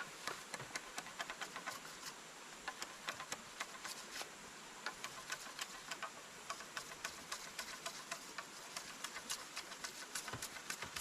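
Steady rush of a small river, overlaid with irregular sharp clicks or crackles, several a second.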